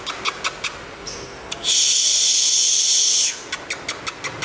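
Caged male sunbird calling: a quick run of sharp, high chip notes at about five or six a second. In the middle comes a loud, buzzy, hiss-like trill lasting about a second and a half, then the chips resume.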